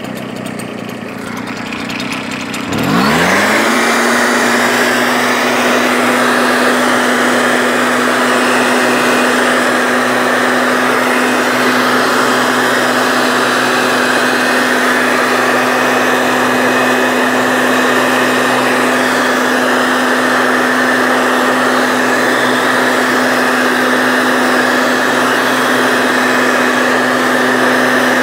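Engine-driven mist sprayer blowing insecticide mist out of its nozzle. About three seconds in the engine revs up. It then runs steadily at high speed over a rushing hiss of air.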